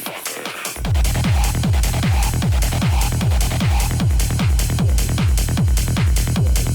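Hard techno from a DJ set: a deep kick drum on every beat, about two a second, over fast hi-hats and a synth line. The kick is out for the first moment and drops back in under a second in.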